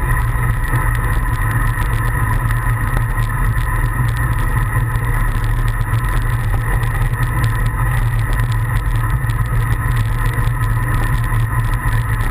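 Steady, loud wind rush and low rumble over a bicycle-mounted camera's microphone while riding at speed, with the road bike's tyres running on asphalt.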